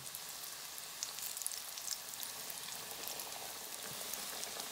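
Flour-coated chicken tenders deep-frying in hot oil just after going in: a steady sizzle with a dense patter of small crackles and pops.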